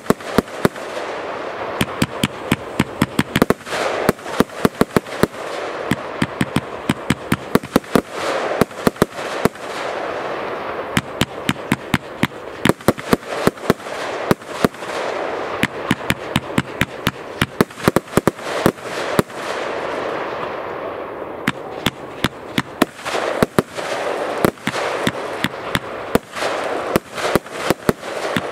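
Kimbolton Fireworks 'Sovereign' compound firework cake firing: a fast run of sharp bangs as shots launch and burst, coming in waves every few seconds over a steady hiss of burning stars.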